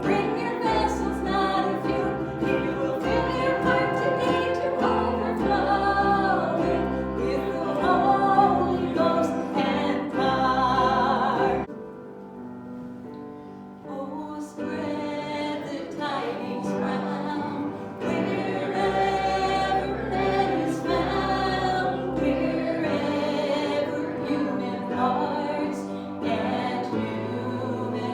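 Church worship singing by a group of voices with instrumental accompaniment and sustained bass notes. A little under halfway through, the singing drops away for about three seconds, leaving soft held notes, then resumes.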